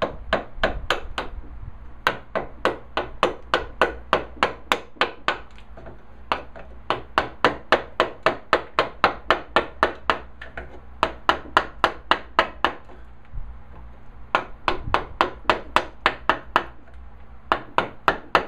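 Mallet tapping a chisel with quick, light strikes, about four a second, in several runs separated by short pauses, chopping waste out of a dado in walnut a little at a time.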